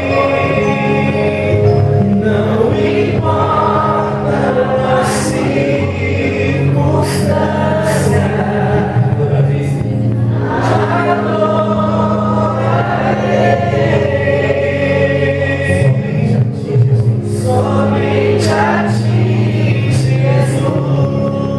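Gospel hymn sung by a group of voices, with music playing along.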